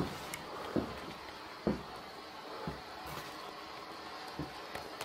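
Soft footsteps on a wooden floor, a few dull thuds about a second apart, over faint room hiss, with a sharp click at the start.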